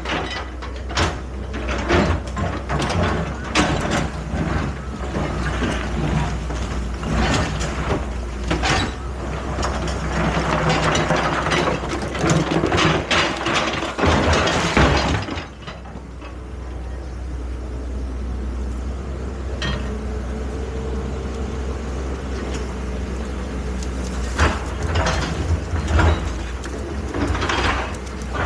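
Excavator's diesel engine running steadily under repeated metallic clanks and knocks from the working machine. The clatter stops about halfway, leaving only the engine, and a few more knocks come near the end.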